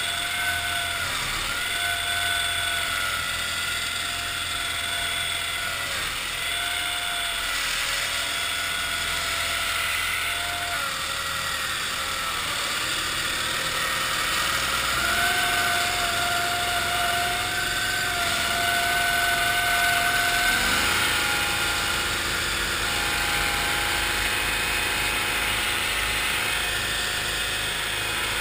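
1974 Cushman Trackster marsh model's engine and tracked drivetrain running under way, with a steady whine. The whine dips briefly a few times, climbs about halfway through and drops back about two-thirds of the way.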